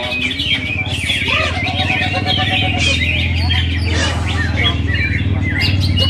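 Many caged songbirds singing at once, a dense chatter of overlapping chirps and trills, over a steady low hum.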